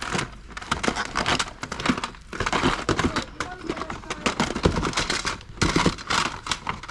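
Plastic VHS and DVD cases clacking and rustling as they are handled and packed into a box, with many irregular clicks and knocks.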